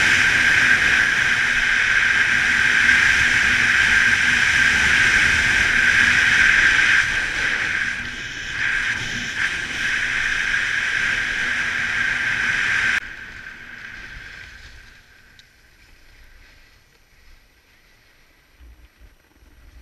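A snowboard sliding over groomed snow, with wind rushing over the action camera: a loud, steady hiss that stops abruptly about two-thirds of the way through, leaving only faint wind.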